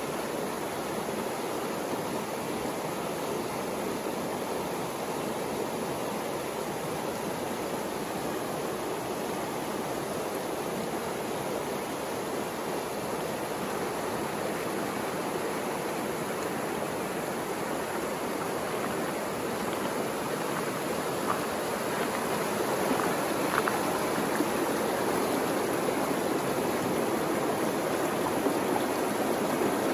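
Shallow, partly frozen mountain river rushing over rocks between shelves of ice. The rushing grows louder about two-thirds of the way through.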